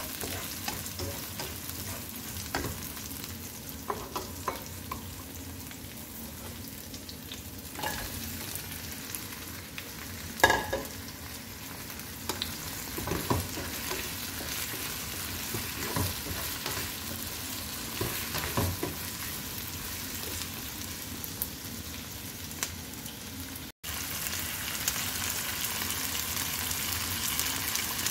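Onion, ginger and green pepper sizzling in a nonstick frying pan while a wooden spatula stirs them, with scattered scrapes and taps on the pan and one louder knock about ten seconds in. Raw chicken feet are frying in the pan by the middle, and the sizzle is louder and brighter after a short break near the end.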